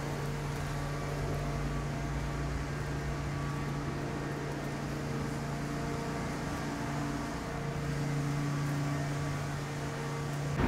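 Steady low machine hum in city street ambience, with a few fainter steady tones above it.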